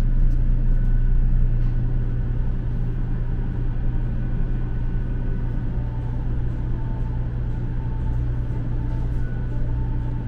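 Steady low rumble of a 500 series Shinkansen bullet train running, heard from inside the passenger car.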